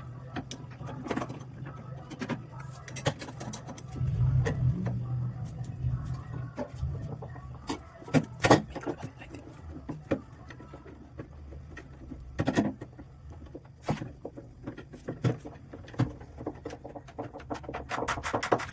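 Scattered taps and knocks of wooden pieces being handled and fitted together, irregular and sharp, the loudest about eight and a half and twelve and a half seconds in, over a low steady hum.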